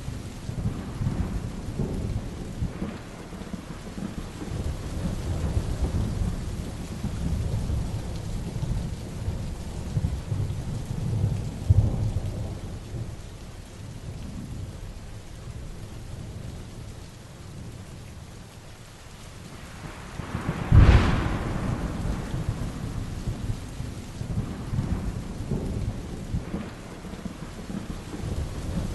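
Heavy rain with thunder rumbling on and off; a sharp thunderclap about two-thirds of the way through is the loudest moment, with rumble trailing after it.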